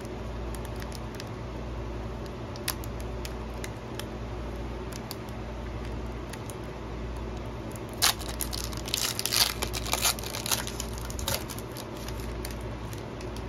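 Foil wrapper of a trading-card pack crinkling and tearing as it is pulled open by hand, loudest about eight to eleven seconds in, over a steady low hum.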